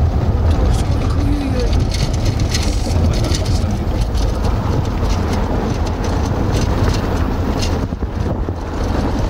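Car interior noise while driving on a rough, patched country road: a steady low rumble of engine and tyres with many short knocks.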